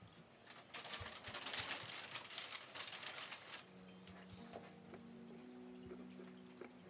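A few seconds of scratchy rustling, then soft background music of long held low notes that change every second or so.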